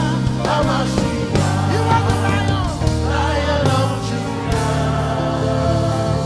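Live gospel worship band playing, with drums struck close to the microphone over held bass and keyboard notes, and many voices singing together.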